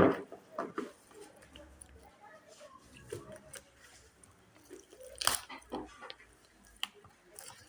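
Scattered clicks and knocks of small metal parts and tools being handled. The sharpest knock comes just after five seconds in, with a few lighter clicks after it.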